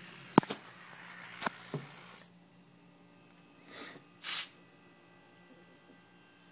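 A few sharp clicks and knocks of handling, then two short hisses of air about four seconds in, the second louder: air puffing out of a small reciprocating refrigerator compressor's tube as the finger blocking it lets go, a sign the compressor still has good compression. A faint steady hum runs underneath.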